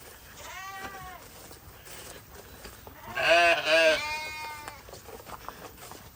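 Hair sheep bleating: a faint bleat about half a second in, then a loud quavering bleat around three seconds in, followed straight away by another.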